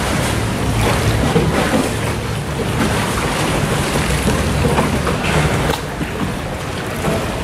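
Steady low rumble and wash of a boat moving along a canal, with wind noise on the microphone.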